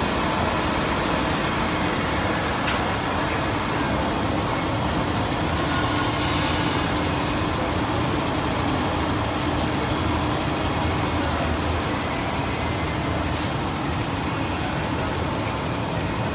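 Four-layer bubble wrap film production machine running: a steady mechanical hum and rush of the line with a thin high whine held throughout.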